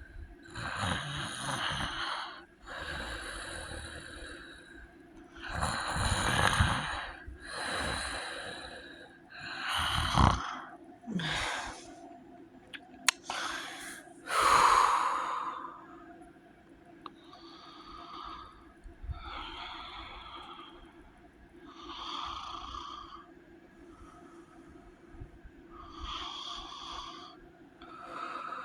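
Heavy snoring from a sleeper with sleep apnea. Loud breaths come about every one and a half to two seconds for the first fifteen seconds, then quieter and more spaced out, with a brief sharp click about halfway through.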